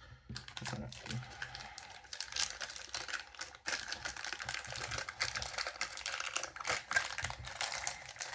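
Small plastic pieces being handled: a rapid, uneven run of clicks and crinkling rustles, as a plastic blind-box toy figure and its wrapping are fiddled with.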